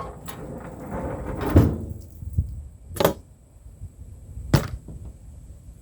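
A rustle of handling, then three sharp knocks about a second and a half apart.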